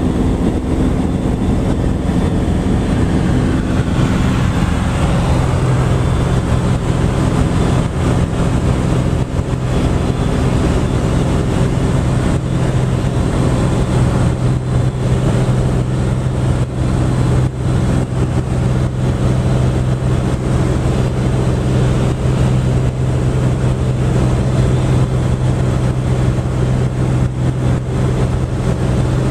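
Cabin sound of a SOCATA TB-20's six-cylinder Lycoming engine and propeller running steadily in flight, with airflow rushing past the cabin. The engine note shifts about five seconds in, then holds steady.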